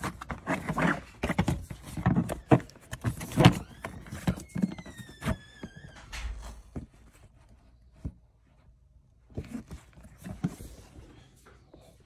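Hard plastic interior pillar trim of a 2022 Honda Civic being handled and fitted back around the seat belt: a run of plastic knocks and clicks, with a short falling squeak of plastic rubbing about four to six seconds in, then a few lighter taps near the end.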